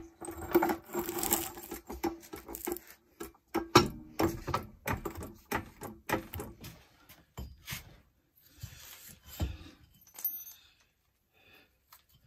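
Irregular metallic clicks, clinks and knocks of hand tools and bolts being handled on a car's underside while fitting a CV axle. They come thick for most of the first eight seconds, then only now and then.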